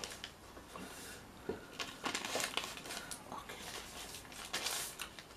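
Paper crinkling and rustling in several short bursts as the food on it is shifted about.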